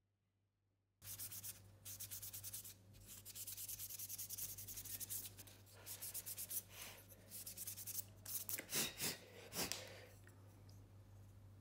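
Rapid back-and-forth rubbing strokes on wood, like hand sanding. They start about a second in, pause briefly twice, and end with a few louder separate strokes before fading.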